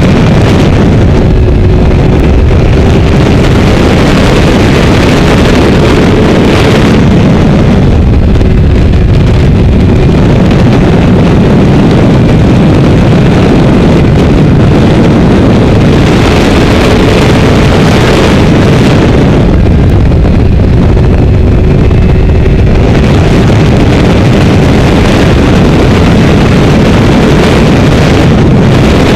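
Wind rushing over the onboard microphone of a Honda CBR600RR at road speed, with its inline-four engine running beneath; the wind noise swells and eases a few times.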